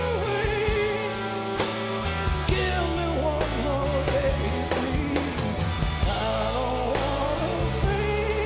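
Live rock band performing: a male lead singer's voice over electric guitars, bass and a steady drum beat with cymbal hits.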